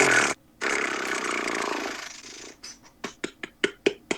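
A man's mouth-made sound effect: a hissing, rushing noise for about two seconds. Then a spinning selection wheel starts ticking, sharp clicks about five a second.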